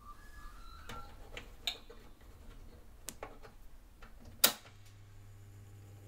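Several sharp clicks from the controls of a vintage Speedie Thermostatic TH 10 fan heater, the loudest about four and a half seconds in. Right after it the heater switches on and its cross-flow fan motor starts with a low, steady hum.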